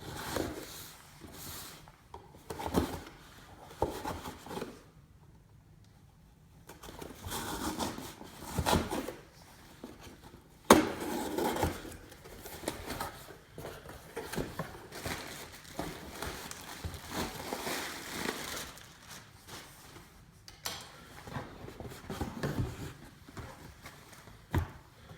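A cardboard shipping box being opened and the packaging handled: irregular scraping and rustling, with a sharp click about eleven seconds in.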